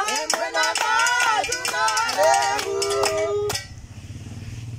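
A small group singing a hymn, with hand clapping and a hand-held metal jingle ring keeping a quick beat. The singing and percussion break off suddenly about three and a half seconds in, leaving a low engine hum.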